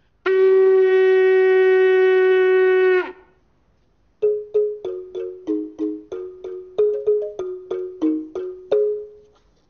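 A horn blown in one steady, loud note held for about three seconds. After a short pause, a balafon is struck in a quick run of about fifteen wooden-bar notes, each ringing briefly, at roughly three notes a second.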